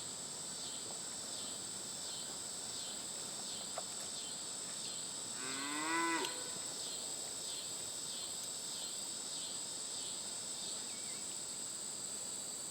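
Steady chorus of insects: a high continuous buzz with a softer pulsing trill, somewhat under two pulses a second. A little past halfway comes one short, rising, moo-like call lasting about a second.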